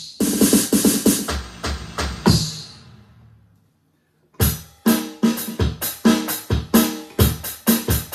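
Electronic drum kit sounds: a drum pattern that dies away about three seconds in, then after a short silence a new kit sound starts with a fast run of hits.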